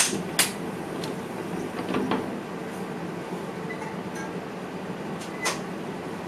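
Steady hum inside the driver's cab of a VIRM electric train, with a few sharp clicks and knocks: two close together at the start, a softer pair about two seconds in, and another near the end.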